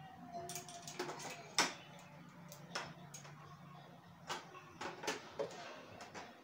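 Handling clicks and knocks as a ring light's mount is fitted onto the top of a metal tripod stand, with a sharp knock about a second and a half in the loudest.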